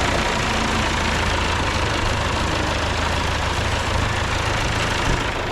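Massey Ferguson 65 tractor engine running steadily with an even low hum.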